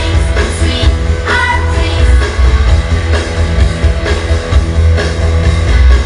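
Loud dance music with a heavy bass beat and a singing voice.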